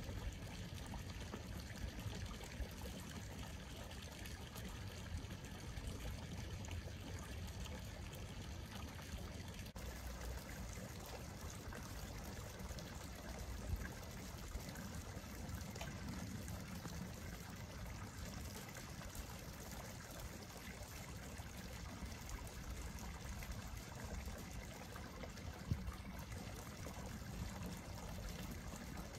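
Water trickling steadily, with a low rumble underneath.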